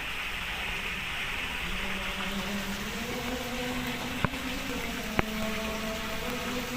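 Steady rushing noise of pond water, with a faint low pump-like hum that wavers slowly in pitch. Two sharp clicks come about four and five seconds in.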